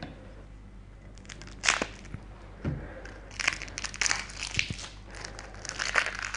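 Plastic wrapping on a deck of game cards crinkling and tearing as it is opened, starting about a second in, with a couple of soft knocks early on.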